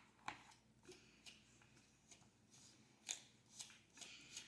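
Faint, scattered clicks and scrapes of plastic sand tools working kinetic sand, about half a dozen light strokes, the clearest about three seconds in.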